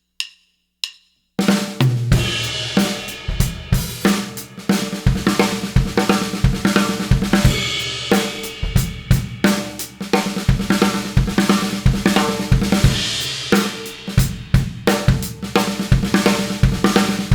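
A few sharp drumstick clicks counting in, then a drum kit (Pearl Music City Custom with a steel snare and Soultone cymbals) playing at a quick tempo: a groove with hi-hat and cymbals, alternating with a six-stroke-roll fill on the snare in which a bass drum kick takes the place of the fourth stroke.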